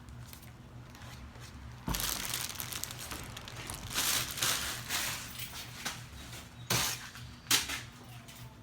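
Packaging being handled: crinkling and rustling in short bursts, with a sudden knock about two seconds in and a sharp click near the end, over a faint steady low hum.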